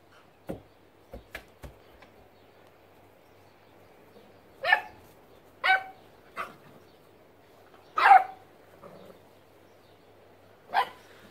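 Nine-week-old beagle puppy play-barking at a basketball: five short barks a second or two apart, the loudest about eight seconds in. A few light knocks in the first two seconds.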